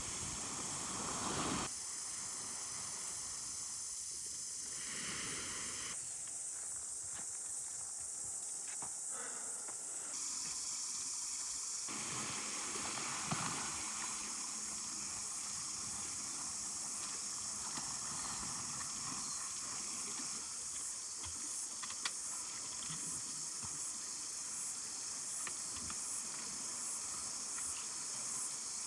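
Outdoor ambience: a steady, high-pitched hiss that shifts abruptly several times, with a faint regular pulsing in the later part.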